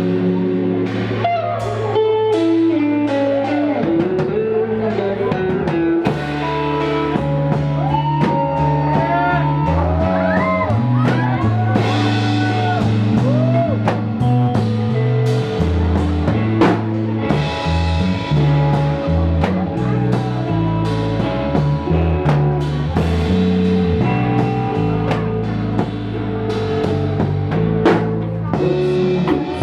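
Live rock band playing: guitars, bass guitar and drum kit, with lead notes sliding in pitch over a steady bass line.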